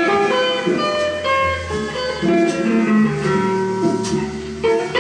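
Guitar music played from a vinyl record on a 1970s Philips record player, a melody of plucked notes over low sustained bass notes.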